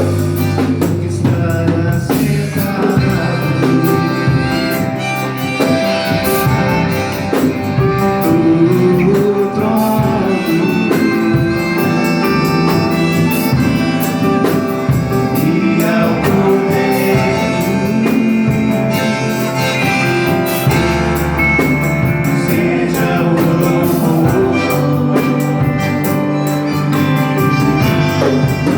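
Music with a singing voice over guitar and a drum kit, playing continuously at a steady loud level.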